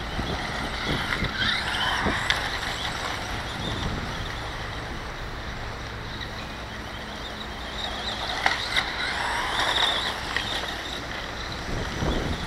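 Dromida BX4.18 RC buggy's electric motor whining up and down as it speeds up and slows, in two spells, with a few sharp clicks. Wind buffets the microphone throughout.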